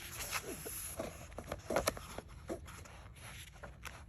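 Paper handling of a softcover book: pages being turned and smoothed flat, a few short scrapes and soft taps.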